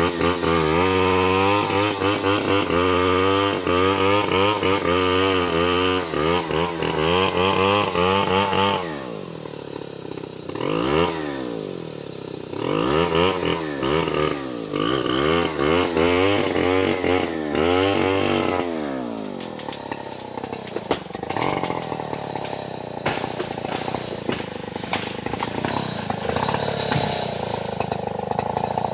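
Two-stroke chainsaw running with its pitch repeatedly rising and falling, about twice a second, as the throttle is worked or the chain bites into wood. From about two-thirds of the way in it runs quieter and steadier.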